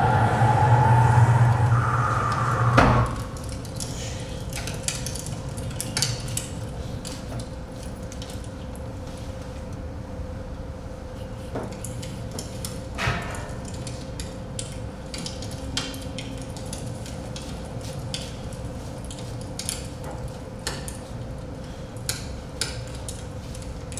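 Stage music ending in a sharp hit about three seconds in, then scattered light clicks and knocks from movement and props on a theatre stage over a faint steady hum.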